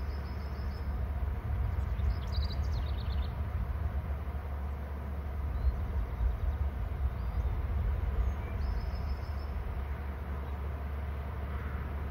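Steady low rumble, with a small songbird singing short high trills of rapidly repeated notes three times: at the start, about two seconds in, and again near the end of the second third.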